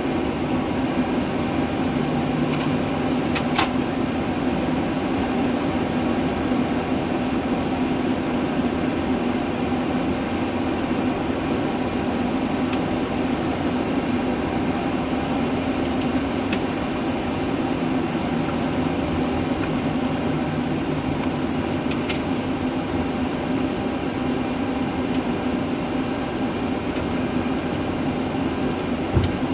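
Steady airliner cockpit noise: ventilation airflow and engine hum, with a couple of faint clicks.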